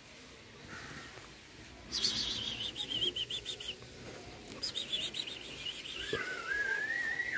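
Small birds singing: two quick, fast-repeating chirping trills, followed near the end by a single long whistled note that wavers and rises.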